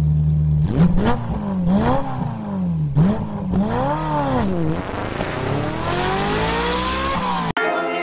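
Engine-revving sound effect for an intro: the pitch swings up and down several times, then climbs in one long rev and cuts off abruptly. Guitar music starts just before the end.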